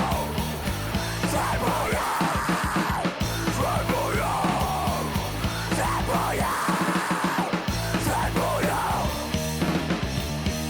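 Rock music with a loud sung vocal over a steady bass line.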